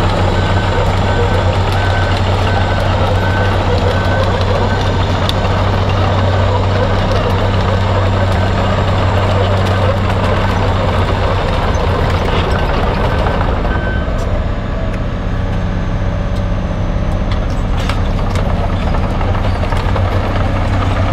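Wirtgen W2000 cold milling machine's diesel engine running steadily as it travels on its crawler tracks. Its warning beeper sounds in a steady series of beeps that stop a little over halfway through.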